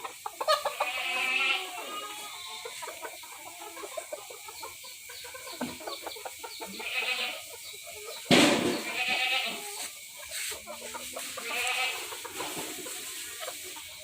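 Young bantam chickens clucking and squawking: several separate calls, the loudest about eight seconds in, over scattered small clicks and scuffles.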